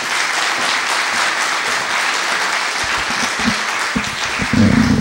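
Audience applauding. Near the end, knocks and a loud low rumble come through the microphone as the speaker lowers the microphone stand.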